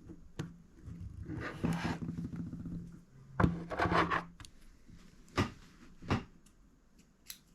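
Small hand tools working an iPhone 5 open: short scraping passes against the phone's screen and frame, with several sharp clicks and taps in between.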